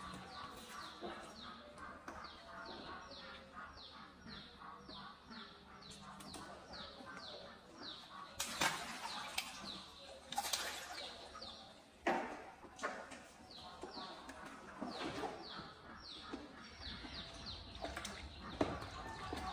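Water in a small pool splashing as monkeys drop and dangle into it, with three louder splashes in the middle stretch. Behind it a bird chirps rapidly, a fast run of high falling chirps about five a second.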